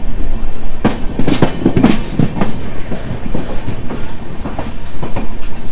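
Kanyakumari–Howrah Superfast Express running at speed, loud, its wheels clattering over the rail joints in a steady run of irregular knocks.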